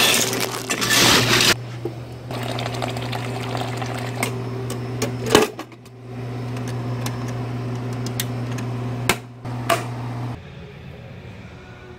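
Ice clattering out of a refrigerator dispenser for the first second or so. Then a kitchen appliance hums steadily, with a few sharp clicks, and cuts off about ten seconds in.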